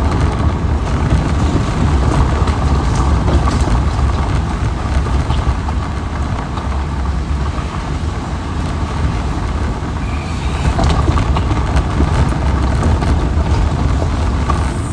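Lifted 2013 Jeep Wrangler's 3.6-litre V6 and drivetrain running off-road, a steady low rumble with scattered knocks and rattles.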